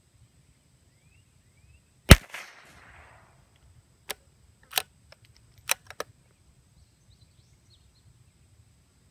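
A single shot from a scoped CZ 455 .22 LR bolt-action rifle about two seconds in, with a short ringing tail. Then the bolt is worked: four sharp metallic clicks over the next two seconds as it is opened, drawn back, pushed forward and locked for the next round.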